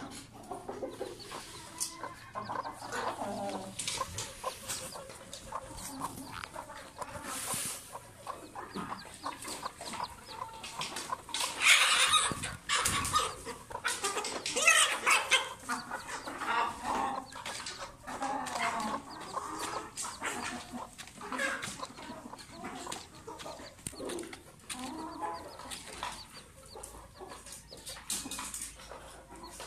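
Mother bantam hen clucking in a run of short calls, loudest near the middle.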